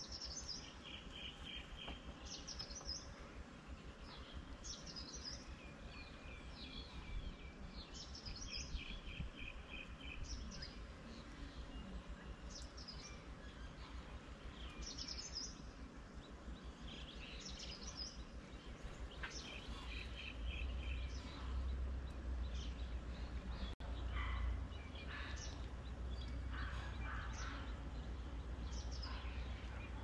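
Birds chirping and calling again and again, with short high notes and some quick rattling trills. About two-thirds of the way in, a steady low rumble grows louder underneath them.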